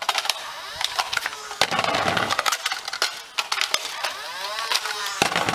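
Hard plastic clicks, knocks and rattles of Nerf magazines being pulled from belt-mounted 3D-printed mag holders and handled with a Nerf blaster. Two drawn-out scrapes slide up and down in pitch, one about two seconds in and one near the end.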